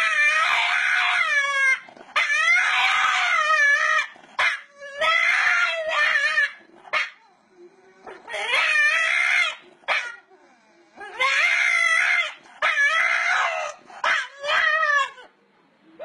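A dog howling in a series of about seven long calls, each one to two seconds, wavering up and down in pitch.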